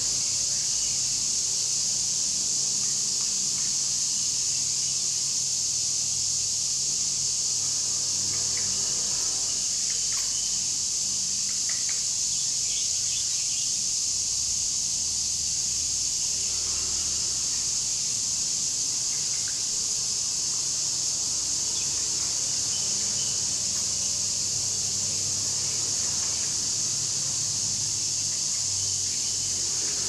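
Steady, high-pitched chorus of insects buzzing, with a few faint short chirps about a third of the way in.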